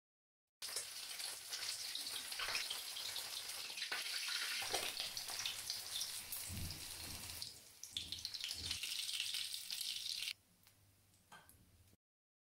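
Pieces of sea bream frying in hot oil in a stainless steel pan, sizzling steadily with quick crackles and spits. It starts abruptly just under a second in and drops to a faint sizzle about ten seconds in.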